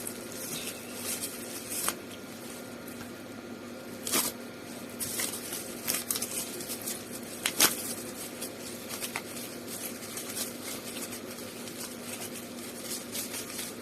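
Washing machine running with water sloshing inside it, over a steady hum, with scattered clicks and knocks.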